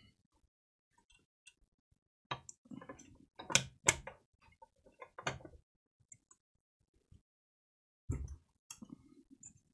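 Plastic and metal parts of an Xbox Series X clicking and knocking as they are set loosely back into place during reassembly, in scattered irregular knocks, a cluster around three to five seconds in and another near the end.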